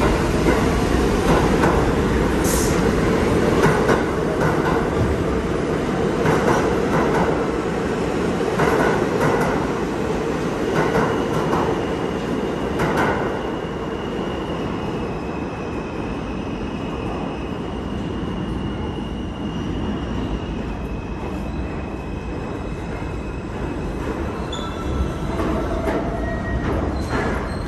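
Subway train pulling out along the platform: a steady motor hum with repeated knocks of wheels over rail joints, which eases off about halfway through, followed by faint, thin wheel squeals.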